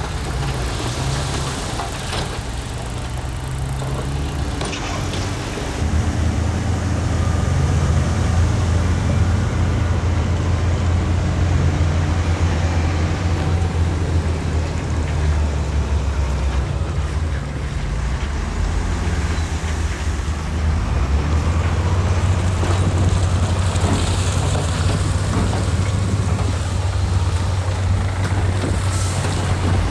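Heavy diesel engine of earthmoving machinery running under load with a steady low drone, growing louder about six seconds in as the engine works harder.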